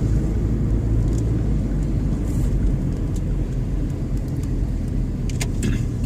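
Steady low rumble of a car being driven, engine and road noise heard from inside the cabin, with a few short clicks near the end.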